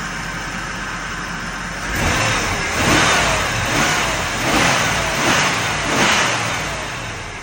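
1994 Chevrolet Impala SS's 5.7-litre LT1 V8 running steadily, then revved in a series of about six quick throttle blips from about two seconds in, easing off near the end.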